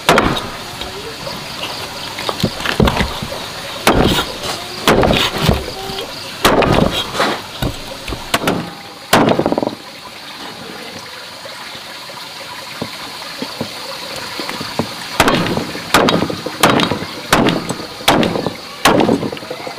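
Water splashing and sloshing in irregular bursts over a steady hiss, with a quieter stretch in the middle.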